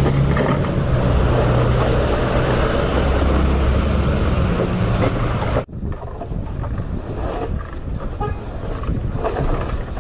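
A vehicle engine running steadily with a low hum. About halfway through it cuts off abruptly, giving way to wind rumbling on the microphone.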